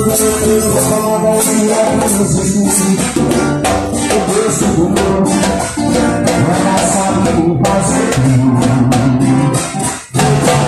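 Band music with guitar and shaker, tambourine and drum percussion, playing loudly and steadily, with a brief break about ten seconds in.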